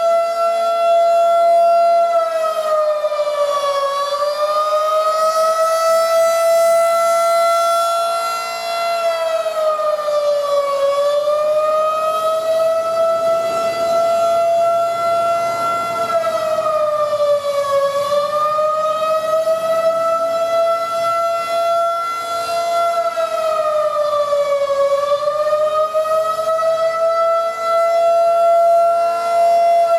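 Federal Signal 2001-SRN rotating outdoor warning siren sounding a steady, loud tone during a scheduled test. Its pitch sags briefly and recovers about every seven seconds as the head turns.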